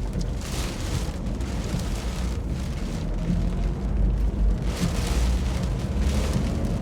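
Hurricane wind buffeting the microphone in a heavy low rumble, with gusts of rushing wind and rain hiss swelling about half a second in and again near five seconds.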